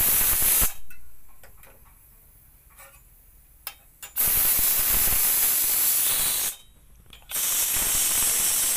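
Pressure cooker venting its steam: the whistle weight is lifted with a flat steel utensil and steam hisses out in three loud bursts. The first ends under a second in, the second starts about four seconds in and lasts about two seconds, and the third runs from about seven seconds in. Small metal clicks come from the weight in the pauses between. This is the pressure being let out by hand after the pork has boiled under pressure.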